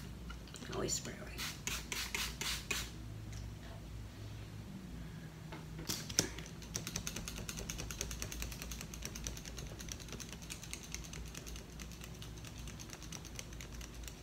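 Setting spray misted from a pump bottle in a quick run of about eight spritzes. About six seconds in, a folding hand fan snaps open and is fanned rapidly, its fabric and ribs fluttering in a fast, even patter.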